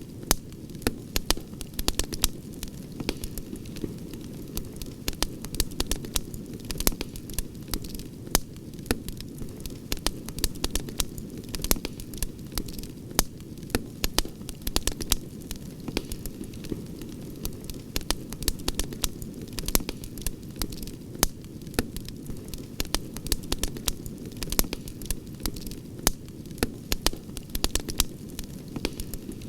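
Campfire crackling: frequent, irregular sharp pops and snaps over a steady low rush of burning.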